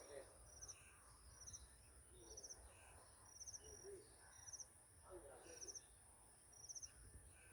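Faint outdoor chorus of high, short chirping trills repeating about once a second over a steady high-pitched whine, with a few softer, lower calls now and then.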